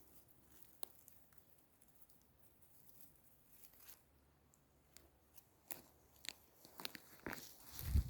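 Scattered crunches and rustles of dry forest litter and twigs. They are sparse at first and come thicker from about six seconds in, with a low thump near the end.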